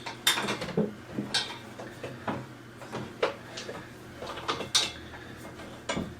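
Scattered light knocks and clicks, about ten spread irregularly, from handling flat-pack desk panels and their metal screws during assembly.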